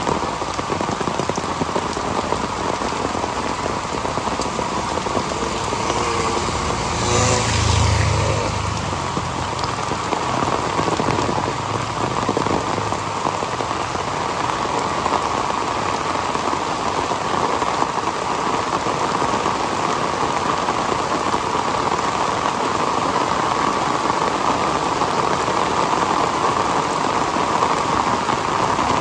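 Heavy tropical rain pouring steadily. About seven seconds in, a brief louder low rumble rises over it and fades.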